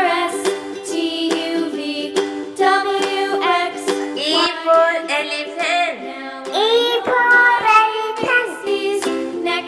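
Children's song music: a singing voice sliding up and down in pitch over a steady backing with a regular beat.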